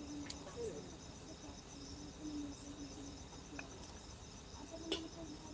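Crickets chirping steadily and faintly, with a few short, soft, low hums and two sharp clicks.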